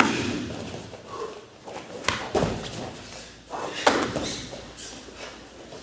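Full-contact karate sparring: punches and kicks landing on bodies with sharp thuds. One hit lands right at the start, two come close together about two seconds in, and another lands about four seconds in, with feet moving on the floor between them.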